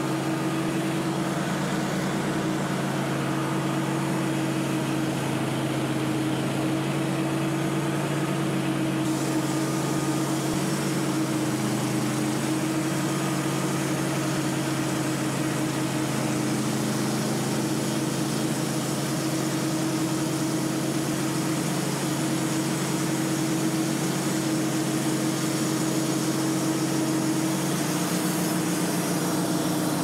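Wood-Mizer LT15 Wide band sawmill cutting through a large white oak log: its gasoline engine runs steady under load while the band blade saws through the wood.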